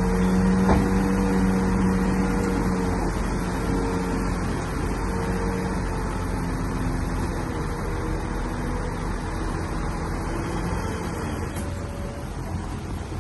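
Bulldozer's diesel engine running steadily, its pitch shifting slightly a few seconds in and the sound slowly fading.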